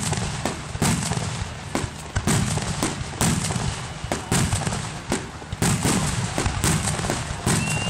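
Aerial firework shells bursting in quick succession, a sharp bang about once a second with some closer together, over continuous crackling.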